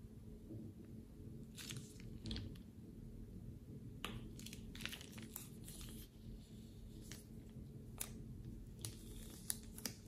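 Glossy slime being stirred and pressed with the plastic tip of a piping bag in a glass bowl, giving faint short sticky crackles and clicks in scattered clusters.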